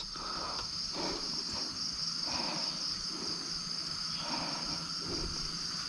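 Steady, high-pitched drone of insects, an unbroken chorus.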